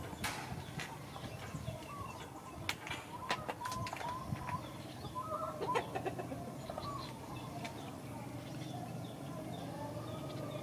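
Birds calling with short, repeated curved calls, several overlapping. A few sharp clicks come around the middle, over a steady low hum.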